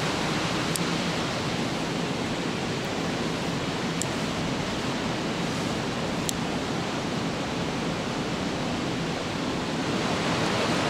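Steady rushing of flowing water: an even, unbroken hiss, with a few faint ticks on top.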